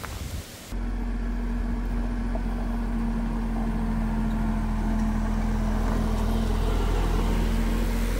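Farm tractor's diesel engine running steadily as the tractor drives up a gravel road and passes close by, starting suddenly about a second in and growing slightly louder as it nears.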